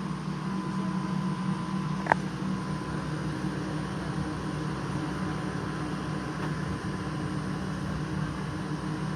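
BLACK+DECKER 14,000 BTU portable air conditioner running with a steady fan and compressor hum and a thin whine on top. A single short click comes about two seconds in.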